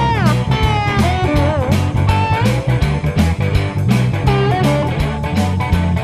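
Background music: electric guitar playing bending, bluesy lead lines over bass and a steady beat.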